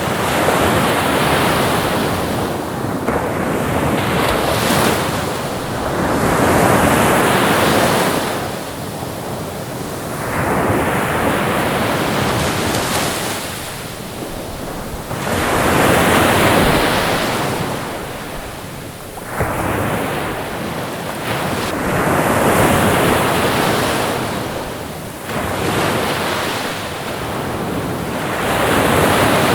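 Ocean waves breaking and washing in one after another, a rushing surf that swells and falls back about every three seconds.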